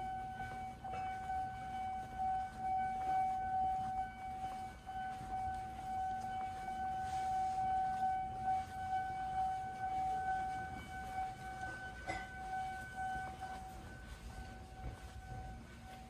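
A steady electronic alarm tone held on one high pitch, with fainter overtones above it.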